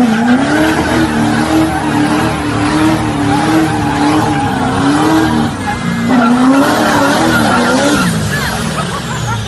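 Diesel Chevrolet Silverado dually pickup doing a burnout: the engine is held at high revs that waver up and down about once a second while the rear tires spin and squeal on the pavement. The revs sag briefly near the end.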